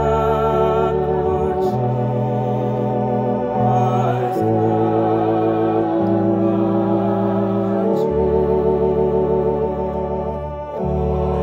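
Electronic organ playing a slow hymn: sustained chords with vibrato over held bass notes, changing every second or two. The sound dips briefly a little before the end, then a new chord comes in.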